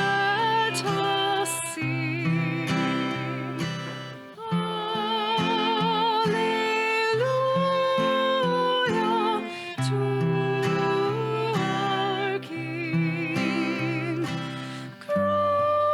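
Worship song: a singer holding long notes with vibrato over acoustic guitar accompaniment.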